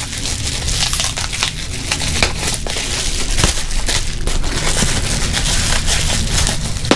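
Bubble-wrap plastic packaging crinkling and crackling continuously as hands pull it off a camera part.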